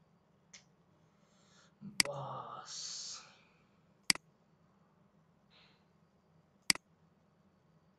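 Computer mouse button clicks: three sharp clicks about two seconds apart, each a quick double tick. Around two seconds in, a breathy noise lasting about a second.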